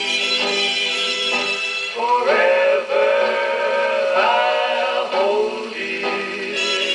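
78 rpm record playing on a portable wind-up gramophone: a slow ballad with male vocal-group harmony, long held notes gliding from one to the next.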